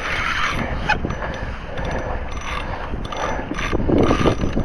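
Spinning fishing reel working under the load of a hooked fish, its gears and drag clicking and grinding as line is wound in.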